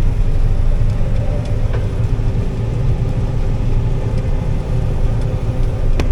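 Combine harvester running steadily while cutting soybeans: a constant low engine drone with a steady hum above it, and a single sharp click near the end.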